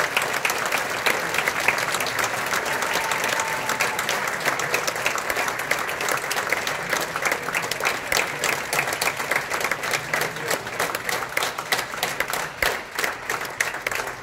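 Audience applauding, the clapping thinning out into more separate claps toward the end.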